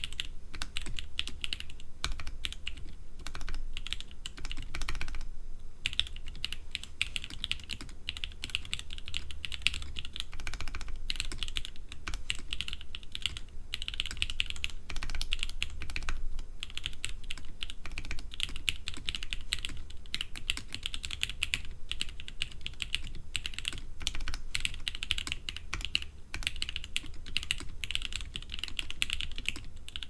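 Fast, continuous typing on a Roxy 65XT FE custom mechanical keyboard with SP-Star Vanilla switches, Domikey Hush keycaps, an FR4 leaf-spring plate and a stacked acrylic case, with a brief pause about five seconds in.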